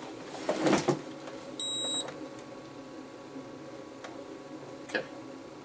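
Rustling and handling of test probes, then a short, high electronic beep from a digital multimeter set to diode test, and a sharp click near the end.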